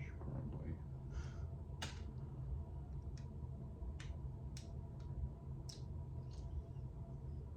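Light, sharp plastic clicks and taps, about seven spread unevenly, as the opened housing and parts of a three-speed ceiling fan pull chain switch are handled. A steady low electrical hum runs underneath.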